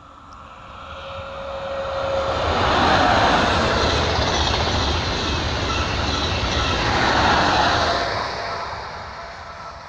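A Renfe AVE Class 100 high-speed electric train passing at speed. Its wheel, rail and air noise swells over about two seconds, stays loud for about five seconds, and fades as the train goes away.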